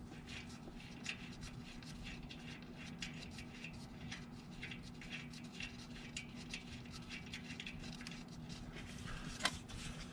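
Faint, irregular small clicks and scrapes of hands working the oil filter cap and its tiny screws into place. There is a sharper click about nine and a half seconds in, and a steady low hum underneath.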